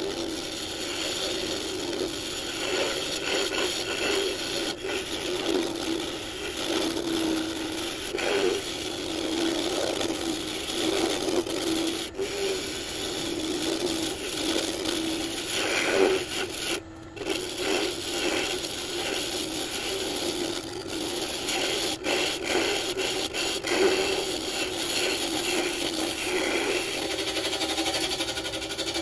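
Turning tool cutting inside a spinning walnut vase on a wood lathe: a continuous scraping hiss over the lathe's steady hum, broken briefly about seventeen seconds in.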